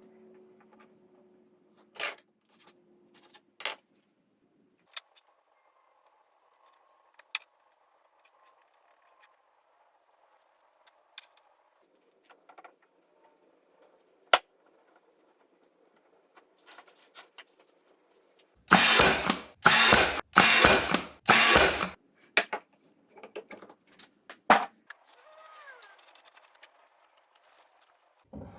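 Workshop assembly work on metal CNC parts: scattered sharp clicks and knocks of tools and hardware, then a run of about five short, loud, noisy bursts from a tool a little past the middle.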